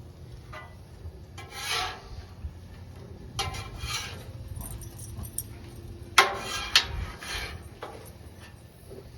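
Cooking utensils scraping across a grill's cooking surface in several short strokes, with a sharp metallic click about six seconds in, over a low steady rumble.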